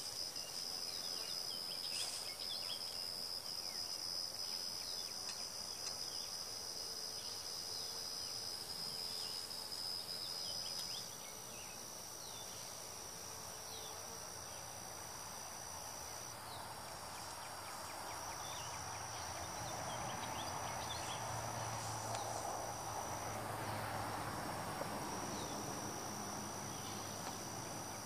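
Honeybees buzzing around an open hive, over a steady high-pitched insect trill at two pitches that breaks off and starts again every few seconds.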